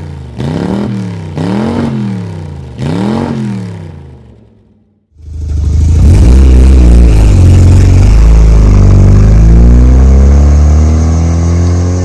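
Mazda RX-7 FD3S twin-turbo 13B rotary engine revved in about four quick blips, each rising and falling in pitch. After a short silence the car is heard loud and close as it pulls away, its pitch climbing as it accelerates.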